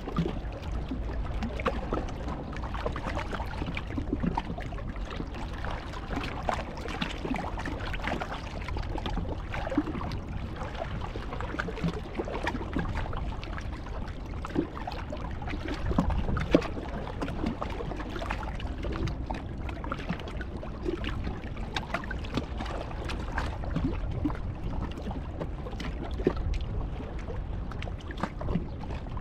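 Steady rushing noise of wind and sea, with many small crackles and ticks scattered through it and a sharper one about halfway.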